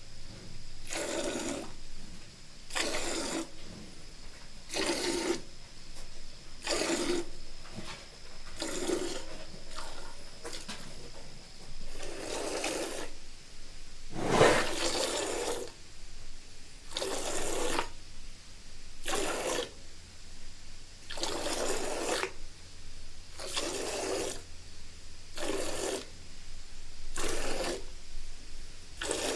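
Milking sound effect: spurts of milk hissing and splashing into a pail, about one every two seconds, in an even rhythm.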